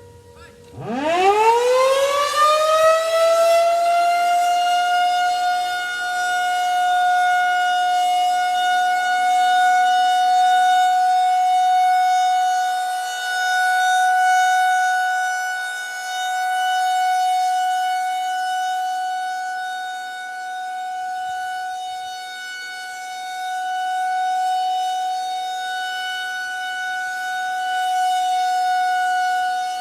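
Federal Signal 2001-130 outdoor warning siren starting up about a second in: its pitch climbs quickly, then settles into one steady, loud tone held as the alert signal. The loudness swells and fades slowly as the rotating siren head sweeps round.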